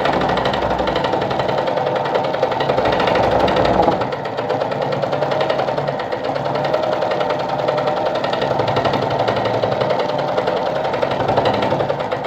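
Sartina e-100 sewing machine stitching steadily at speed, sewing its built-in decorative stitch pattern number 2 with a short stitch length. The running eases off slightly about four seconds in.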